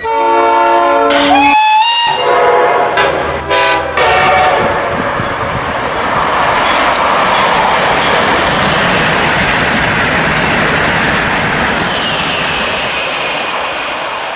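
A train whistle sounds several chords in about the first four seconds, with a brief upward slide in pitch near two seconds. It gives way to a steady rushing hiss.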